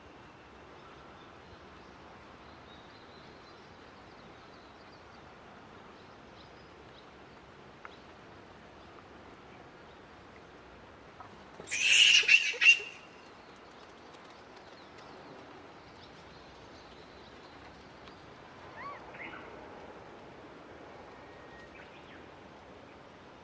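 An animal gives three quick, loud, high-pitched calls about halfway through, over a faint outdoor background. A few fainter, wavering calls follow later.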